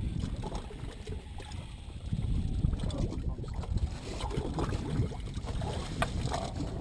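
Steady low rumble of wind and sea around an open fishing boat, with a few faint clicks in the second half.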